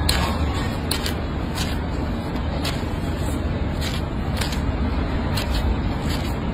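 Steel nail blade scraping a thickened toenail in short strokes, heard as irregular sharp ticks about once or twice a second over a steady low rumble.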